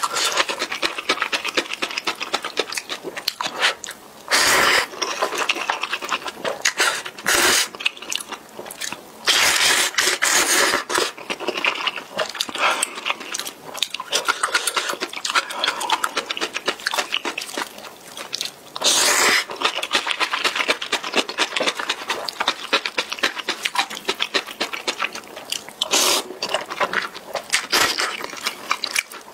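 Close-miked eating sounds of spicy instant ramen noodles: continuous wet chewing with rapid mouth clicks, broken several times by louder slurps of noodles lasting up to about a second each.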